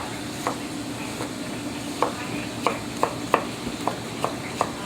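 Knife chopping onion on a cutting board: a string of sharp taps, sparse at first and then quickening to about three a second, over the steady sizzle of diced bacon rendering in a pot.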